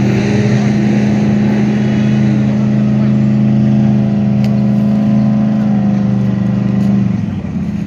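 Off-road truck engine held at high, steady revs under load during a recovery pull out of the mud, then easing off about seven seconds in.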